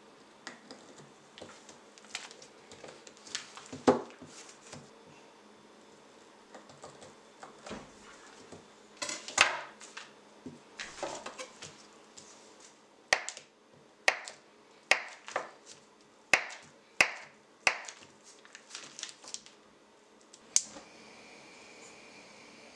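A kitchen knife cutting through a stick of butter on its paper wrapper: soft scrapes, then a run of sharp knocks, about seven in a row less than a second apart, as the blade comes down through the butter onto the wooden board with each slice.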